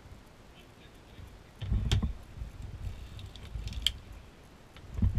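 NZAK circular sock knitting machine being cranked, its cam shell turning around the compound cylinder as the latch needles knit. It gives an irregular mechanical clatter with low knocks, loudest about two seconds in, and a sharp click near four seconds.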